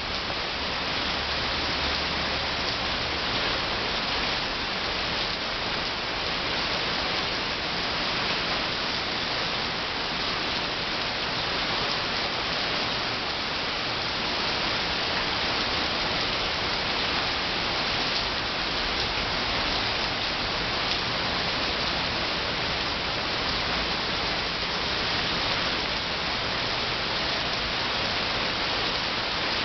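Steady downpour of rain falling on a paved courtyard, potted plants and foliage: an even, unbroken hiss of drops.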